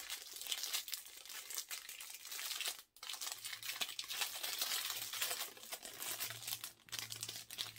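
Packaging being crinkled and pulled open by hand: a continuous rustling crackle of wrapping, with a short pause about three seconds in.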